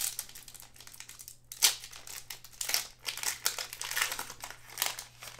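Foil trading-card pack wrapper being torn open and crinkled by hand: a run of irregular crackles, the sharpest about a second and a half in.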